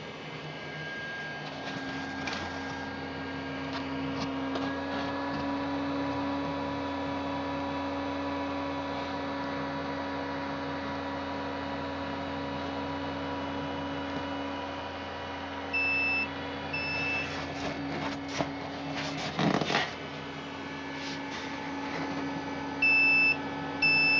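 Steady hum of a PC power supply and its fan running, with short high electronic beeps that come in two pairs, about a second apart, one pair past halfway and one near the end. A brief noise sounds between the two pairs.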